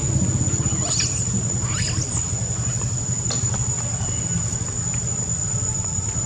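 A steady high-pitched insect drone over a low steady rumble, with two short rising squeals from young long-tailed macaques about one and two seconds in.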